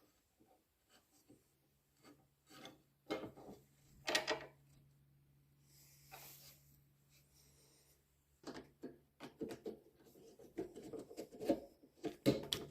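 Tools and wooden parts being handled and worked at a workbench: scattered knocks and scrapes, then a quicker run of rubbing and knocking in the last few seconds.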